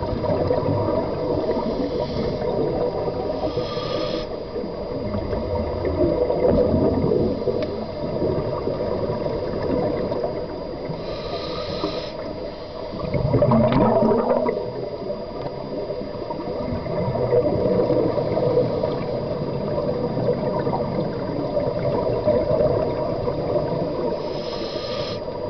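Underwater sound of scuba divers breathing through their regulators: short hissing inhalations every few seconds and gurgling rushes of exhaled bubbles, the loudest rush about halfway through.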